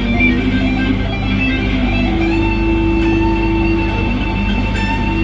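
PRS SE Custom 24 electric guitar played through an amp: a few short single notes, then a high note held for about three seconds that slides down in pitch at the end.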